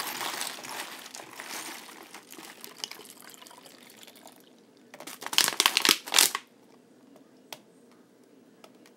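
A thick liquid mixture pouring from a plastic bag into a plastic bottle, with the bag crinkling; the pour fades away over the first few seconds. About five seconds in, a loud burst of plastic crinkling, then only a few faint clicks.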